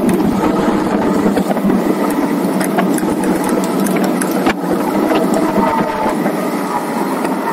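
Wind rushing over the camera microphone during a fast road-bike descent of a steep hill, with a few sharp knocks from the road.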